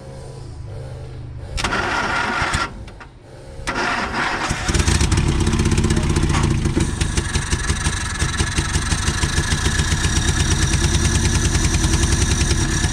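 Car engine being cranked by its starter motor: two short bursts, then from about five seconds in a long, even, rhythmic crank.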